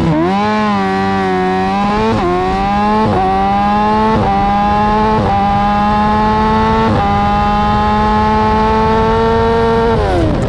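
A vehicle engine accelerating hard through the gears: its pitch climbs, drops sharply at each of about five upshifts, then falls away near the end as the throttle comes off.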